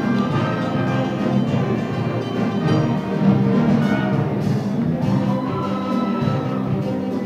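Background music with sustained, layered instrument tones playing steadily.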